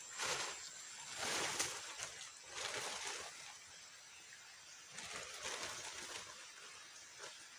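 Water sloshing and splashing in irregular swells, roughly one every second or so.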